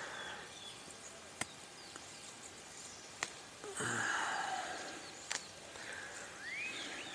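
Basil plants being handled as their flower heads are pinched off by hand. There is soft rustling, a few sharp clicks, and a louder rustle about halfway. Faint bird chirps come near the end.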